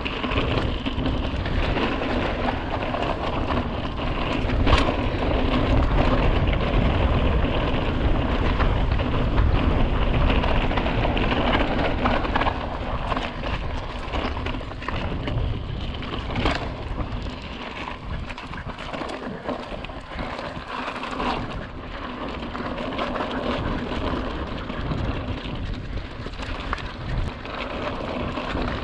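Hardtail mountain bike ridden over bare slickrock, heard close up: a steady rush of wind and tyre noise with a low rumble, and the bike clattering over the rock, with sharp knocks about five seconds in and around sixteen seconds. It eases off a little after about seventeen seconds.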